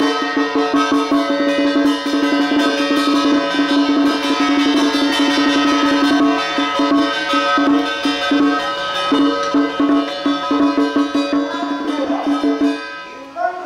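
Traditional music: a melody held mostly on one note over fast, steady percussion, dipping briefly near the end.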